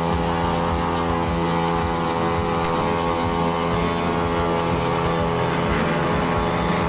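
Several motorcycle engines revving as the bikes spin in tyre-smoking burnouts.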